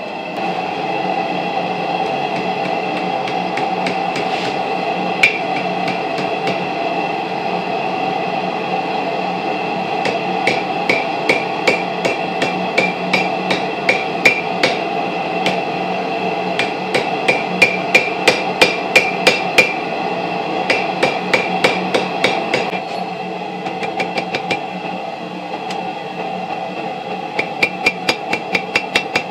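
Hand hammer striking a red-hot railroad spike on an anvil, forging it into a bottle opener. The blows come in runs of about two to three a second, each followed by a short ring from the anvil. A steady hum runs underneath and drops away about two-thirds of the way through.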